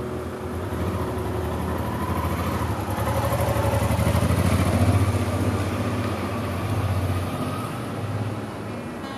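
Honda Transalp 650's V-twin engine as the motorcycle rides past at low speed, growing louder as it comes nearest about five seconds in, then fading as it rides away.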